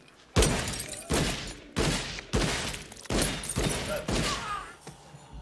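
Film gunfire: a rapid string of about seven gunshots, roughly one every two-thirds of a second, each with a ringing tail.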